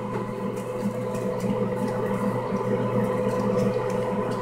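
Faint rustling and handling as a folded slip is drawn from a cup and opened, with a few small ticks, over a steady low hum.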